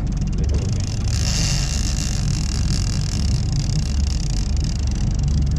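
Boat engine running with a low, uneven rumble, and a brief hiss about a second in.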